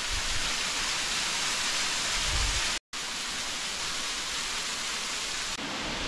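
Thin mountain waterfall running low on water, a steady rushing hiss of water falling onto rock and into a pool. The sound breaks off for an instant a little before the middle, at a cut, and the rushing carries on after it.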